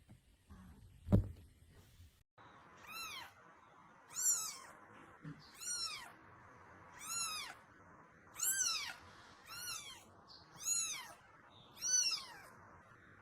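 A sharp knock about a second in, then a cat meowing over and over: eight short meows, each rising and falling in pitch, about one every second and a half.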